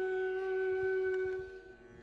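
Background instrumental music: a wind instrument, flute-like, holds one long note that fades out about three-quarters of the way through.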